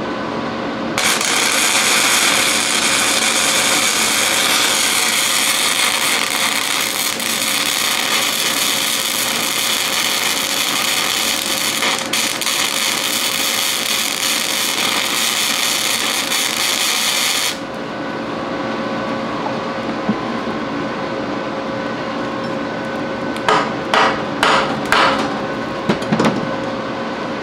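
Electric arc welding, crackling and hissing steadily for about sixteen seconds as a nut is welded onto a broken exhaust-manifold stud, then stopping suddenly. A steady hum stays underneath, and a few sharp metallic knocks come near the end.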